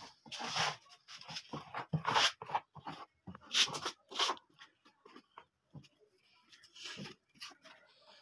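Flat plastic glue spreader scraping wet white wood glue along a wooden door frame in irregular sweeps, a few of them louder.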